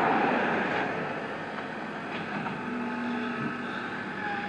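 A motor vehicle's engine and road noise, loudest at first and fading over the first couple of seconds into a steady background hum.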